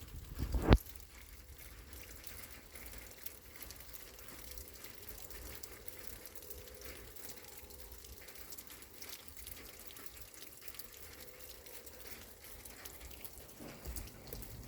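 Steady rain falling, with scattered drips and light ticks of drops. A single sharp knock comes under a second in, louder than the rain.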